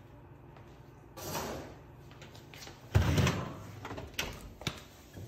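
Frigidaire oven door swung shut with a loud thud about three seconds in, after a brief swish of the pan being handled; two light clicks follow.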